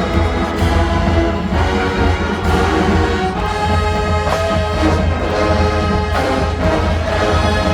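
Marching band with alumni band playing a brass-heavy tune: sustained brass chords over a steady low drum and tuba pulse.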